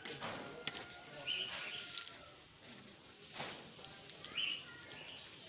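Burning straw with a few sharp crackles, with short chirping bird calls in the background.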